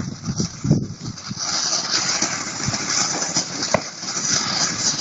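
Fireworks hissing and crackling steadily, with many small pops and one sharp crack near the end.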